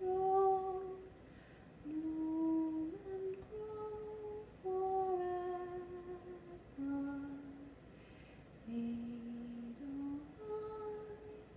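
A woman humming a slow tune with her lips closed. Held notes step up and down in pitch, in short phrases with brief pauses between them.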